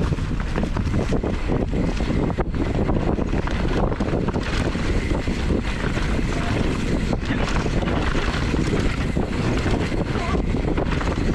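Wind buffeting the microphone: a steady heavy rumble with frequent small knocks and rattles.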